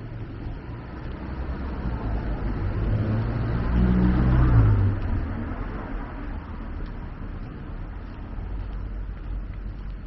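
A motor vehicle drives past on a city street. Its engine hum and tyre noise build up, peak about halfway through, then drop away quickly and fade.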